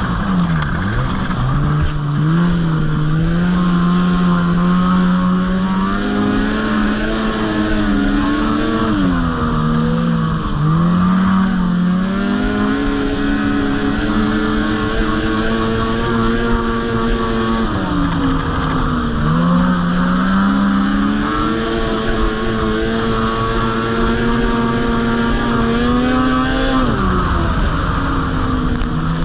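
Snowmobile engine running hard along a trail, heard from the rider's seat. Its pitch drops and climbs again about four times as the throttle is eased off and opened back up.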